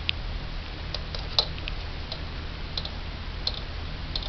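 Faint, unevenly spaced small clicks, about one or two a second, over a low steady hum.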